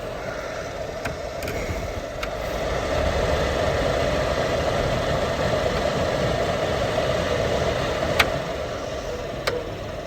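Newly replaced HVAC blower motor of a 2004-2008 Ford F-150 running, a steady rush of fan and air that gets louder about two and a half seconds in, showing the new motor is working. A few sharp clicks sound over it.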